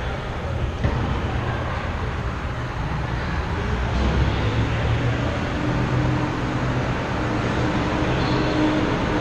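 Steady rumbling hum of arena noise, with a constant low drone and a faint higher tone coming in about halfway.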